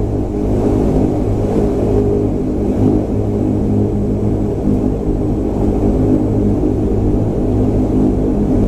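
Steady drone of a De Havilland DHC-8-311 (Dash 8-300) with its Pratt & Whitney PW123 turboprops running, heard inside the passenger cabin: an even rumble with several held humming propeller tones that do not rise or fall.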